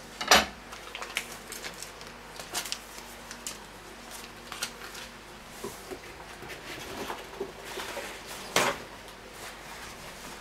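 Handling noises of vacuum-packed meat on a wooden cutting board: light clicks and plastic rustles, with a sharp knock just after the start and another near the end.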